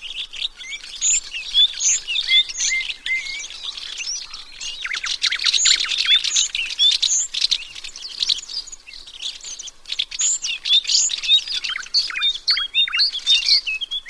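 A group of small songbirds chirping and twittering together: many short high calls and quick rising and falling whistles overlapping without a break.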